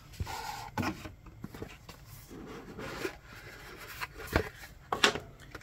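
Hands handling a cardboard watch box on a wooden tabletop: a few light knocks and soft scraping and rubbing of the box.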